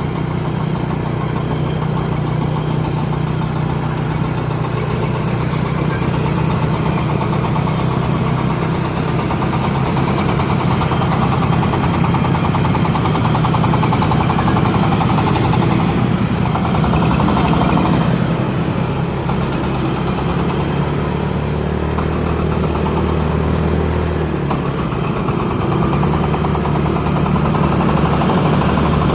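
Engine of a corn-shelling machine running steadily, its speed sagging for a moment about three-quarters of the way through and then picking up again.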